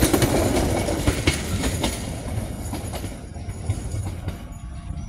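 Passenger train cars rolling past close by, the wheels clacking over the rail joints, then fading about three seconds in as the train draws away.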